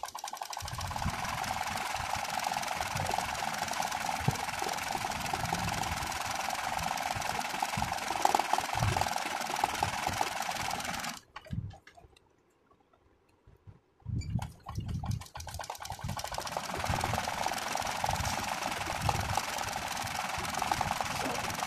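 Janome Secio 8200 sewing machine running fast, stitching free-hand embroidery while the hoop is guided by hand. About halfway through it stops for roughly three seconds, then starts stitching again.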